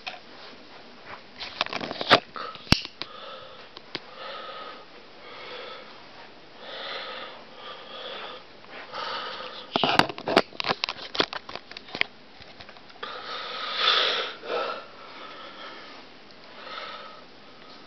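Hissing breath sounds close to the microphone, recurring every second or two, with sharp clicks from the handheld camcorder being moved, about two seconds in and again in a cluster about ten to twelve seconds in.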